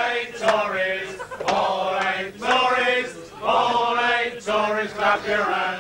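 A group of men singing together in unison, a chanted pub song in short phrases of about a second with brief breaks between.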